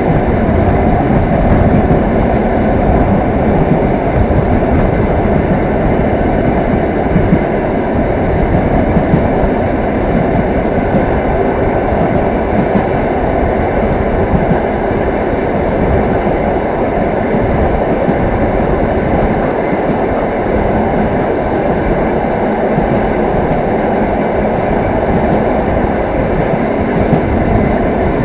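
Passenger train running at steady speed, heard from inside the carriage at the window: a loud, continuous rolling noise of wheels on rails without a distinct clickety-clack beat.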